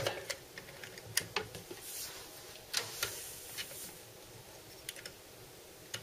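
Faint, scattered plastic clicks and taps with cable rustling as a mini USB plug is fitted into the side port of a Corsair H100i cooler's pump block, with a brief scraping swish about two to three seconds in.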